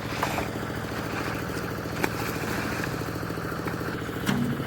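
Concrete mixer's engine running steadily with an even, fast pulse, with a few sharp clanks, the loudest near the end.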